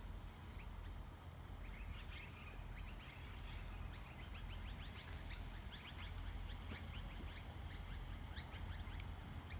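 Birds chirping: many short, quick calls that grow busier after a few seconds, over a faint steady low rumble.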